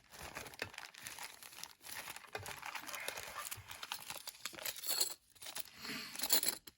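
Rummaging through spare small screws and hardware: plastic packets crinkling with many small clicks and rattles, stopping abruptly near the end.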